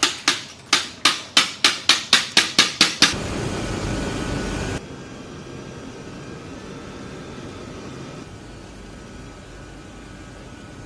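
A camera shutter firing in quick succession, sharp clicks about three a second, for the first three seconds. Then a louder rush of noise for about two seconds that cuts off suddenly, leaving a fainter steady hum.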